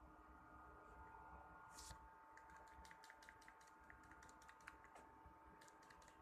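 Shimano 16 Vanquish 4000XG spinning reel giving faint, irregular clicking as it is worked, a cluster of ticks lasting a few seconds after a short rustle. This is the abnormal noise the owner takes for a defect in the brand-new reel.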